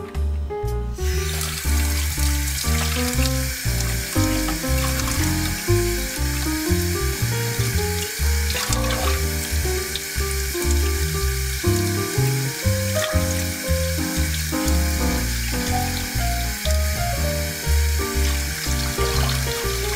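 Tap water running into a stainless steel bowl and splashing over a raw yellowtail collar as it is rinsed by hand, starting about a second in. Background music plays throughout.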